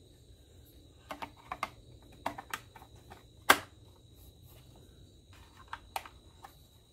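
Scattered light plastic clicks and snaps as the 9-volt battery and battery-box cover are handled and fitted on a Vaultek LifePod 2.0 safe, with one sharper click about three and a half seconds in.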